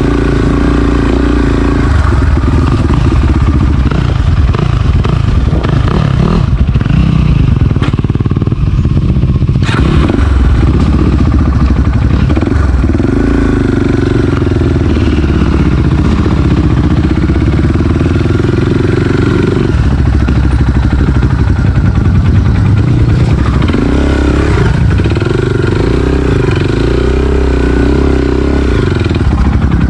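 Enduro dirt bike engine running under load on a trail, its revs rising and falling again and again with the throttle, heard from on the bike.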